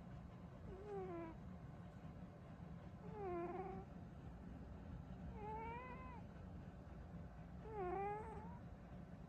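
A sleeping cat snoring, each breath coming out as a pitched, wavering squeak that bends up and down, four times about two seconds apart, over a low steady hum.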